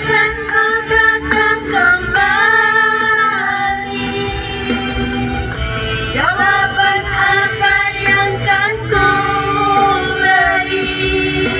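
A woman singing an Indonesian pop ballad into a microphone, with held, gliding notes over backing music.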